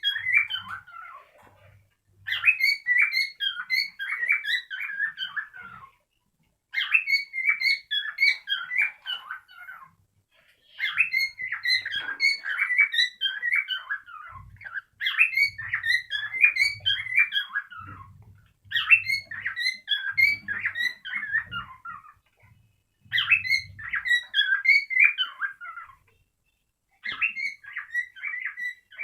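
Cockatiel song: bursts of rapid chirps and warbling whistles, each about three to four seconds long, repeating with short pauses.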